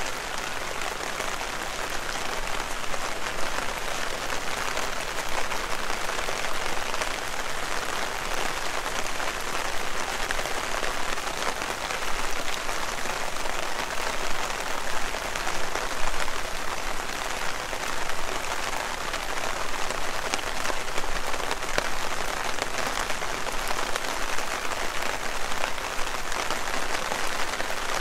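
Heavy rain falling steadily: a dense, even hiss packed with the ticks of individual drops.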